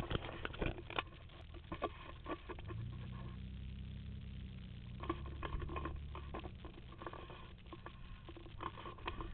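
Camera-handling noise: scattered rustles, scrapes and small clicks. A low steady hum runs for a few seconds in the middle.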